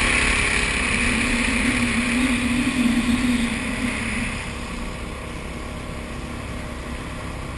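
Tiller-steered outboard motor pushing a small flat-bottomed duck boat at speed, running steadily. It is louder for the first four seconds, then settles to a lower, even level.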